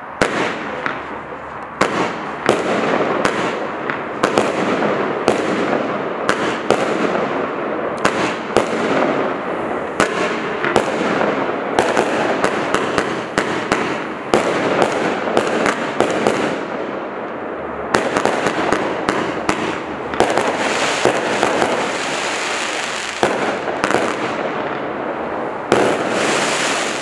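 Standard Fireworks 'Andromeda' firework cake firing its shots in sequence. Sharp launch and burst bangs come about one a second at first, then in quick clusters of several a second in the middle, over a continuous crackling hiss.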